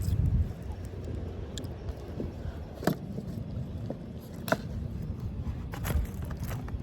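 Steady low rumble of a car cabin, with about four short, sharp clicks spread through the second half.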